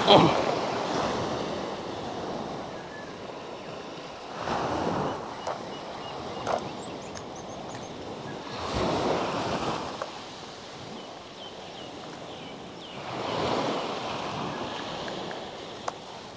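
Sea waves breaking and washing up a sandy beach, surging and fading about every four to five seconds. A few light clicks sound between the surges.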